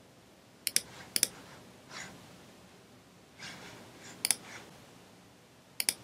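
Computer mouse clicking: four sharp clicks, each a quick press-and-release pair, two about a second in, one past four seconds and one near the end, with a couple of softer noises in between.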